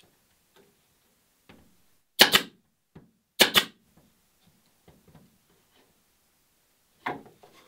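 Pneumatic nail gun firing polymer nails through a wooden batten into a plywood transom: three sharp shots, each a quick double snap. The first two come a little over a second apart, and the third is near the end.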